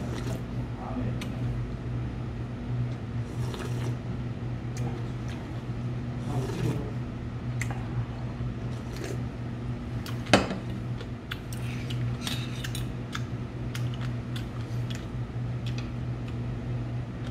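Slurping broth from a stainless steel bowl, with scattered clinks of metal chopsticks and tableware; one sharp clink about ten seconds in is the loudest. A steady low hum runs underneath.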